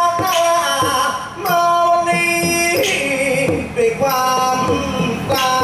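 A likay song sung into a microphone over a PA, with musical accompaniment. The voice holds long, wavering notes.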